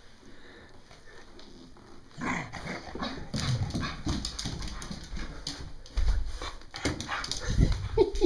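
Irish Terrier vocalizing excitedly and scuffling about on the floor during rough play, starting about two seconds in, with a few heavy thumps.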